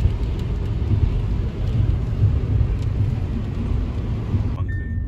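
Heavy rain on a car driving through a thunderstorm: a steady hiss over a deep rumble of road noise. Near the end the rain hiss cuts off suddenly.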